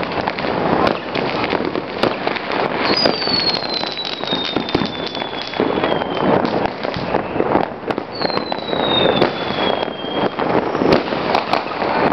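A dense fireworks barrage: continuous firecracker bangs and crackling, with two long whistles falling slowly in pitch from whistling fireworks, starting about three and eight seconds in.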